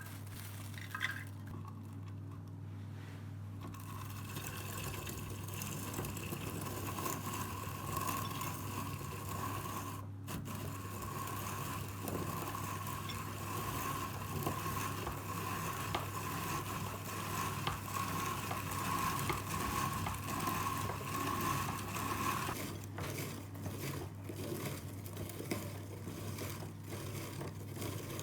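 Hand-cranked rotary cheese/walnut grater being turned, a steady metal scraping with light clinks, over a constant low hum.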